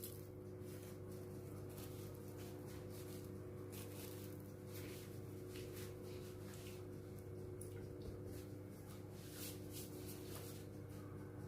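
A faint steady hum with a few soft, scattered clicks.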